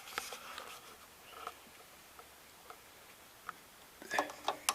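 Small clicks and taps of a multimeter's test probes being handled and set against a breaker panel: a few light ticks, then a quick cluster of sharper clicks near the end.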